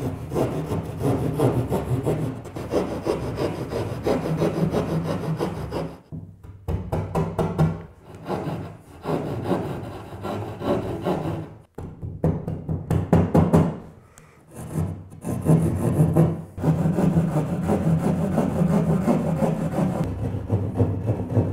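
Plastic-handled drywall jab saw sawing through sheetrock by hand in quick back-and-forth rasping strokes, stopping briefly a few times as the cut moves along the outline.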